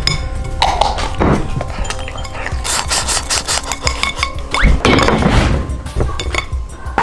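Music with a busy run of scraping, rubbing and clinking knocks, and a short rising whistle-like glide a little past the middle.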